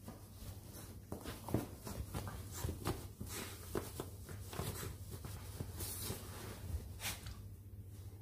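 Cocker spaniel puppy scuffling and chewing in its fabric dog bed: irregular scratching and rustling of the fleece lining and cover as it rolls and tugs at the torn rim, over a steady low hum.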